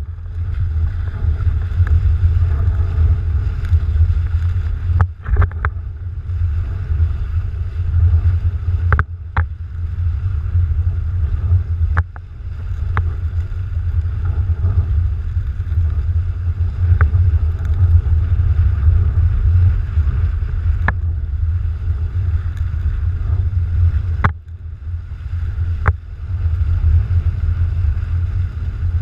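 Wind buffeting the microphone of a mast-mounted action camera on a windsurf rig sailing at speed, a heavy steady rumble, with water rushing under the board. A few thin clicks and brief dips break it now and then.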